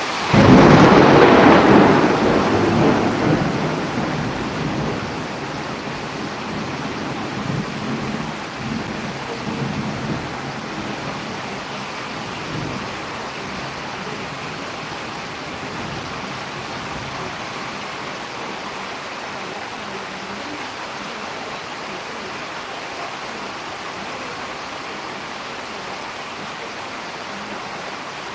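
A thunderclap breaks suddenly about half a second in and rumbles away over roughly ten seconds, over steady rain.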